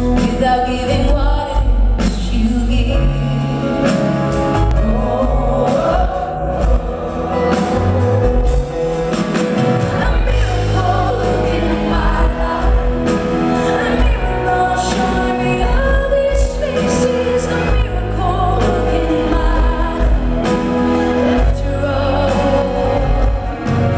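A woman singing a song live into a handheld microphone over band accompaniment with heavy, sustained bass.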